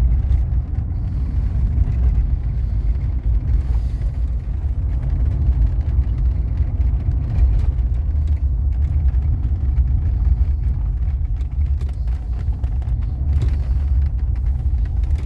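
Mercedes-Benz W126 500 SE's V8 engine, running on LPG, giving a steady low rumble as the car rolls slowly. It runs evenly without misfire or hesitation, the misfire cured by a richer LPG supply.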